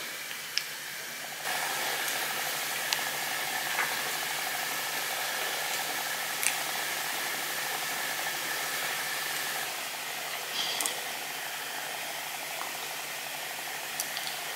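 Steady hissing room noise with a low steady hum underneath; the hiss is louder for about eight seconds from a second and a half in, with a few faint clicks.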